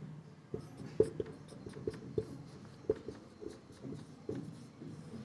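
Marker pen writing on a whiteboard: a string of short, irregular strokes and taps as words are written out.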